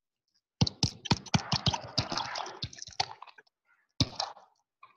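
Rapid clicking and scratching from working the computer's drawing input while the handwritten notes on screen are erased. There is a dense run from about half a second in to about three seconds, and a shorter run near four seconds.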